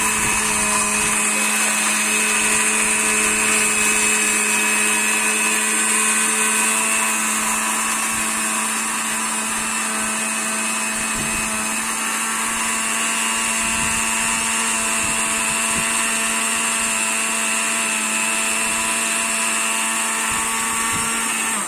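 Small electric spice grinder running at one steady pitch, grinding dried coriander seeds, then switching off abruptly.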